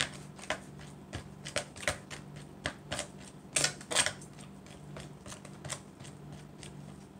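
A plastic spoon scraping and clicking against a clear plastic mixing bowl as a glitter glue and baking soda mixture is stirred, in irregular clicks a few times a second, over a low steady hum.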